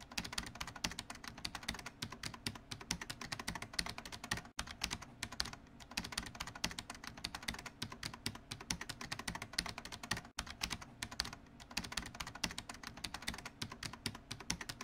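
Rapid computer-keyboard typing clicks, used as the sound effect for on-screen text being typed out letter by letter. The clicking breaks off twice for a moment, about four and a half and about ten seconds in.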